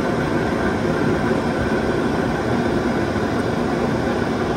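Homemade jet engine, made from a butane canister combustion chamber and a tailpipe and fed by an air blower, running steadily with a constant rushing noise of burning fuel and air and a faint steady whine.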